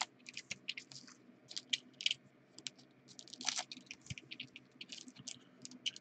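Trading-card pack wrappers crinkling and tearing as they are opened by hand: a quick, irregular run of short crackles.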